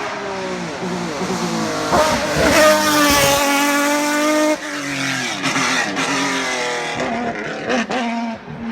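Race car engine at full throttle accelerating up the hill. Its pitch climbs and drops back several times as it shifts up through the gears, loudest a couple of seconds in as it passes.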